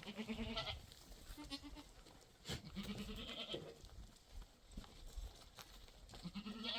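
Goats and sheep in a flock bleating: about four wavering bleats, one right at the start, a short one about a second and a half in, one around three seconds in, and one near the end.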